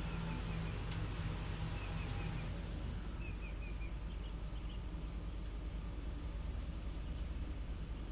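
Hitachi excavator's diesel engine running with a steady low hum that weakens after about a second and a half, under an even outdoor noise, while a small bird chirps in several short runs of quick high notes.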